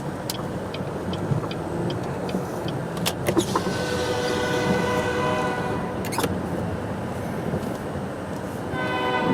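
Car driving slowly on a snowy road, heard from inside the cabin as a steady low rumble, with faint regular ticks in the first couple of seconds. An EMD SD40 freight locomotive's horn blows a chord for about two and a half seconds in the middle, and sounds again near the end.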